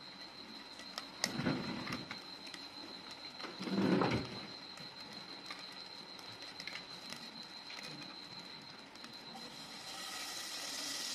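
Margarine being handled and scooped out of a plastic tub with a spoon, with two louder rustles of the foil lid in the first four seconds. Near the end a lump of margarine hits a hot aluminium pot and starts to sizzle.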